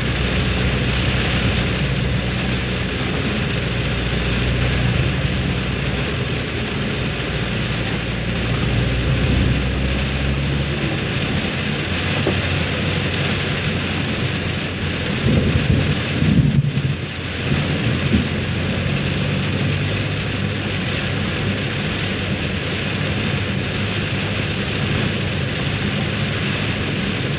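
Very heavy rain pelting a car's windshield and roof, heard from inside the car. A low steady hum under the rain stops about ten seconds in, and a short, louder low rumble comes a few seconds later.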